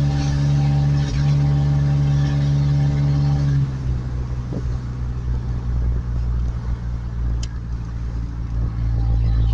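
1991 Ford Ranger's engine running with a steady, even hum; about four seconds in the tone drops away to a lower, uneven rumble. A single light click comes about seven seconds in.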